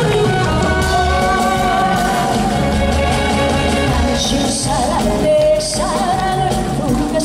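A woman sings a Korean trot song into a microphone over its band accompaniment with a steady beat, with held, wavering notes giving way to short sliding phrases about two-thirds of the way in.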